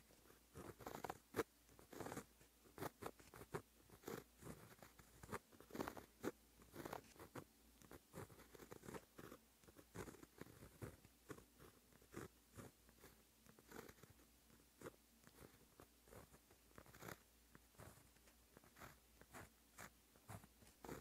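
Faint scratching of a white-ink pen tip on textured black paper, in quick irregular strokes, several a second, as Japanese characters are handwritten.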